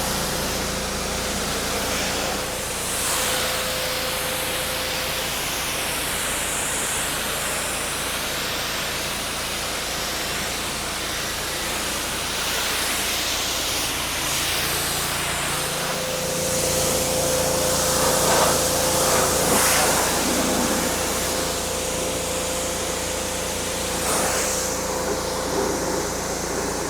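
Gas-powered pressure washer running steadily, its engine droning under the loud hiss of the water spray, which swells around the middle of the stretch.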